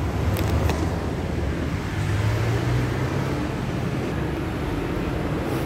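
Steady low rumble of vehicle noise, with a few short clicks about half a second in.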